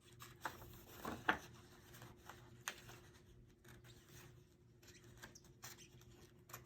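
Scissors snipping through photo paper: a few faint, irregularly spaced cuts.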